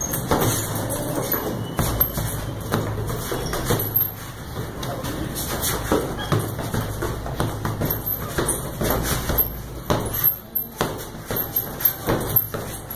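Bare fists punching a hanging heavy sandbag, an irregular series of dull thuds with pauses between combinations, then a quick run of punches near the end.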